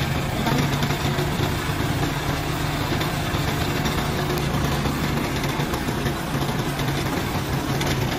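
Two-wheel hand tractor engine running steadily as it tows a cart along a dirt road, heard from the cart close behind it: a constant low engine note with no change in speed.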